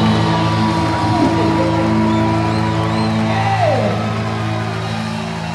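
Live rock band holding the song's closing chord on distorted electric guitars and bass. A guitar slides down in pitch about three and a half seconds in, and the sound begins to fade near the end.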